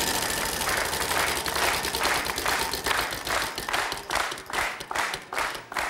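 Game-show prize wheel spinning, its pointer clicking against the pegs in a rapid run that slows to about two or three clicks a second as the wheel loses speed, over audience applause.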